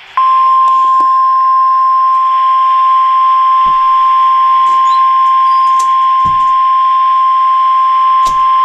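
NOAA Weather Radio 1050 Hz warning alarm tone: one steady, unbroken high tone over a hiss of radio static, sounding loud. It is the alert signal that precedes a broadcast severe thunderstorm warning.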